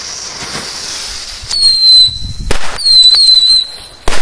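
Fireworks going off: a steady fizzing hiss, two high wavering whistles, and several sharp bangs, the strongest about two and a half and four seconds in.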